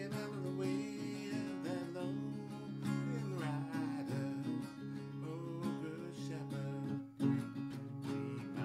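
Acoustic guitar strummed and picked in a steady accompaniment, with a voice singing over it in a folk-blues style; a sharp strummed accent comes about seven seconds in.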